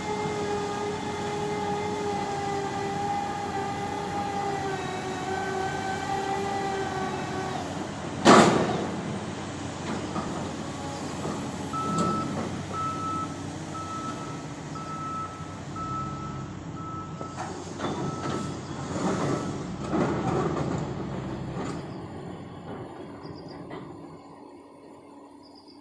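Sany SR235 rotary drilling rig working: a steady machine whine for the first eight seconds, then a loud bang. A warning beeper sounds in short regular beeps for several seconds. Further heavy knocks follow as the soil-laden drilling bucket is handled, and the noise fades near the end.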